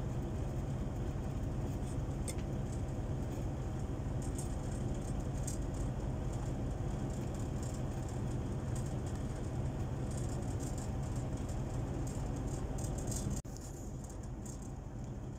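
Steady low hum, with faint clicks and taps of fingers pressing a cover onto a smartphone; the hum drops suddenly in level near the end.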